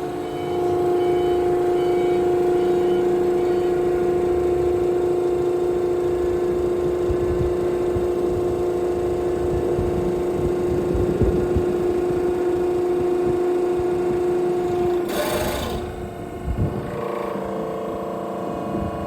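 Hydraulic pump of a JOOS HP 65/2 veneer press running with a steady whine. About fifteen seconds in there is a short hiss, and the pump then runs on at a different pitch.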